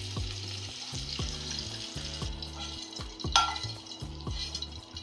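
Onion, garlic, ginger and tomato sizzling in hot mustard oil in a stainless steel pan, with a metal spatula scraping and stirring; one sharp, loud scrape comes about three seconds in.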